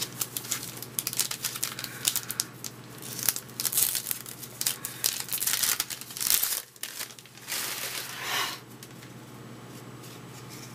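Plastic trading-card pack wrapper being torn open and crumpled, a run of irregular crinkling and tearing noises that stops about eight and a half seconds in.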